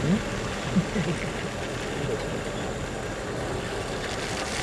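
Maruti Gypsy safari jeep running at low speed as it approaches on a muddy track, under a steady noise, with brief voices in the first second or so.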